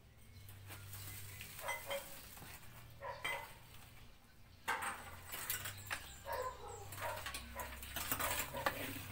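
Hands scraping and smoothing wet cement mortar on a stove top, with a dog barking now and then.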